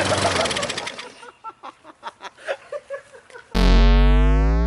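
Gasoline lawn mower engine running, just started on a spray of carb cleaner into the intake with the air filter off, then dying away about a second in. Near the end comes a loud cartoon sound effect, a falling 'boing' tone that slides down in pitch.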